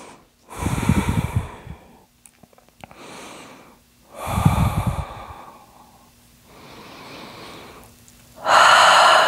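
A woman taking three slow, deep breaths close to a clip-on microphone: quiet inhales between louder, audible exhales, the last exhale starting near the end.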